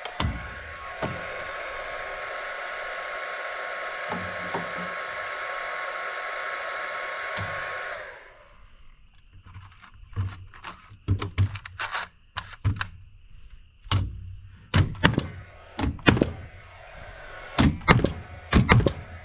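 A steady hiss with a faint held tone runs for about eight seconds and cuts off suddenly. After it come about a dozen sharp, irregular knocks, several of them in quick pairs: nails being driven into wooden purlins on a roof frame.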